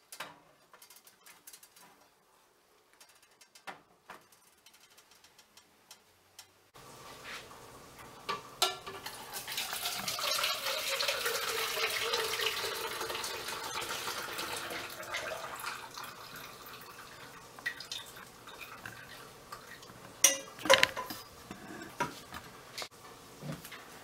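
Liquid poured from a saucepan through a metal strainer into a plastic pitcher: a steady splashing pour lasting several seconds, starting about a third of the way in. It is followed by a few sharp clinks of the pot and strainer. Before the pour there is only quiet with a few faint clicks.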